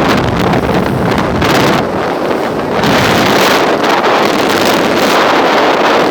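Wind buffeting the microphone, a loud rough rush that swells and eases.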